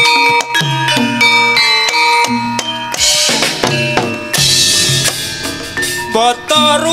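Gamelan ensemble playing: ringing metallophone notes over kendang drum strokes, with two noisy crashes around three and four and a half seconds in. A wavering melodic line enters near the end.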